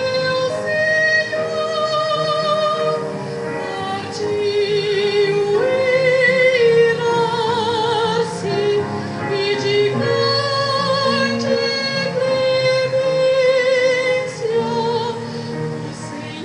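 A church choir singing a hymn, with female voices prominent. The notes are long and held with vibrato.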